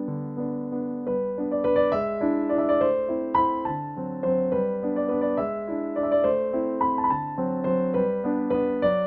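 Background piano music: a gentle, steady melody of sustained notes over a low accompaniment.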